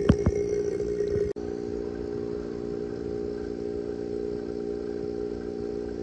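Refrigeration vacuum pump running steadily, evacuating the AC system, with the vacuum nearly reached. Two sharp clicks right at the start, and the hum drops out for an instant just over a second in.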